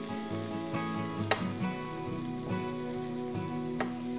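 Chaffle batter sizzling as it is poured over cheese on the hot plates of a preheated Dash four-waffle maker, with a couple of sharp crackles. Soft background music with held notes plays underneath.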